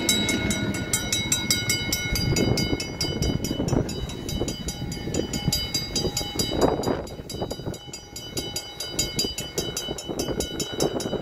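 A rail vehicle running on the track: a steady rumble with irregular knocks from the wheels, over a fast, even ticking.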